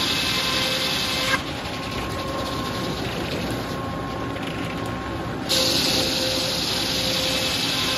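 Large circular sawmill head saw sawing hard maple with a loud hissing rip. About a second and a half in the blade leaves the cut and spins free with a steady whine. About five and a half seconds in it bites into the wood again.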